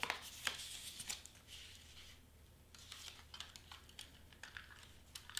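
Light rustling and small clicks of cardstock pieces being handled and set down on the work surface, with a short quiet stretch about two seconds in.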